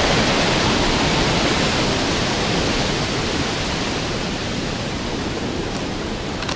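Steady rush of turbulent water at the Boiling Pot below Victoria Falls: an even, dense noise that gradually fades a little.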